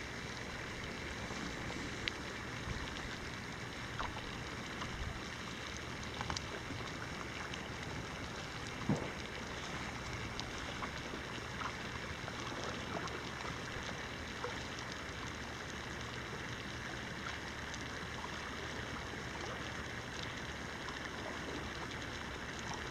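Melting glacial ice of Hansbreen crackling and fizzing: a steady hiss dotted with scattered sharp clicks and pops, the loudest pop about nine seconds in. This is the sound of air trapped in the glacier ice escaping as it melts.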